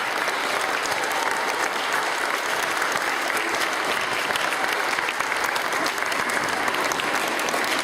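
Audience of children and adults applauding steadily, a dense continuous patter of many hands clapping.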